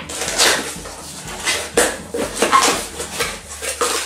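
Cosmetic products and their packaging being handled and unpacked from an opened box: a quick, irregular string of rustles and light knocks.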